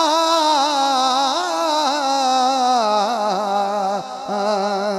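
A man sings a naat unaccompanied into a microphone, holding long ornamented notes with a wavering pitch. The melody steps down about three seconds in.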